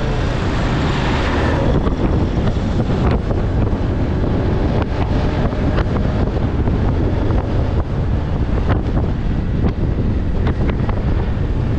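Wind rushing over the microphone of a moving motorcycle, a Honda Winner 150, with its engine running steadily underneath. Scattered short clicks come through the wind.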